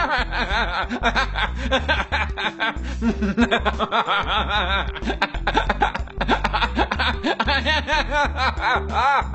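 Deliberate fake laughter made while trying not to smile, in quick repeated ha-ha bursts. Background music with a steady bass line plays under it.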